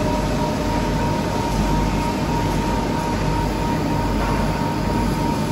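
1982 Heyligenstaedt Heynumat 21U CNC lathe with its spindle and empty chuck running at a steady speed: an even mechanical hum with a steady high whine.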